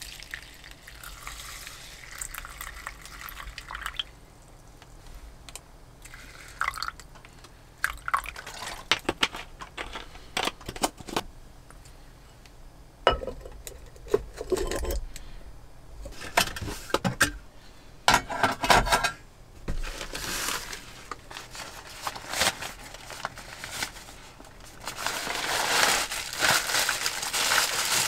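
Water poured from a plastic bottle into a paper-lined ceramic bowl. After that come scattered clicks and knocks as the ceramic pieces are handled and a ceramic lid is set on the bowl. Near the end, plastic packaging crinkles loudly.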